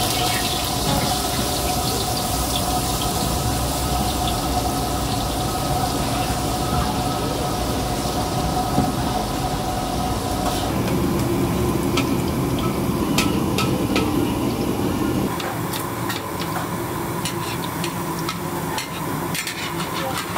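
Egg and sliced onion batter poured into hot oil in a large steel wok, sizzling as it fries. A steady hum runs under it until about halfway, and sharp crackles of spattering oil stand out in the second half.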